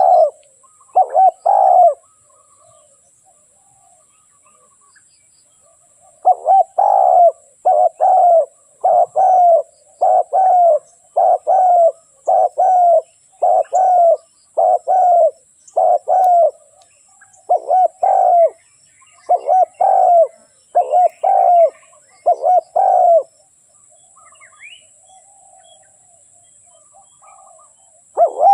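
Spotted dove cooing: a long run of repeated low coos, about one a second, with a few seconds' pause after the first coos and another near the end. Faint higher chirps from another bird show in the pauses near the end.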